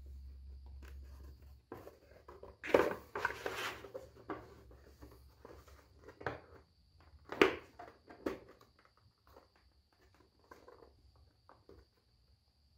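Work-bench handling sounds: scattered light clicks and knocks of 3D-printed plastic helmet parts and tools being moved and pressed together, with a louder rustling burst about three seconds in and a sharp knock about seven seconds in.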